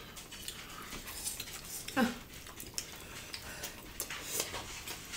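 Eating by hand from ceramic plates: fingers working rice and curry against the plates, with small scattered clicks and clinks. A brief louder sound falling in pitch about two seconds in.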